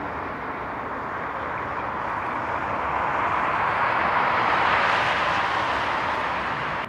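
Boeing 777-300ER's GE90 jet engines during the landing roll-out: a broad rushing roar that swells to its loudest about four to five seconds in as the airliner rolls past.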